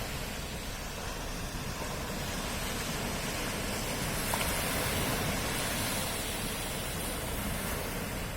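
Sea surf washing steadily on the shore, a continuous hiss of waves that swells a little about halfway through.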